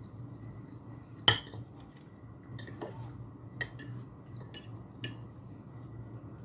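Metal fork and spoon clinking and scraping against a plate while eating. One sharp clink comes about a second in and is the loudest, followed by scattered lighter clinks.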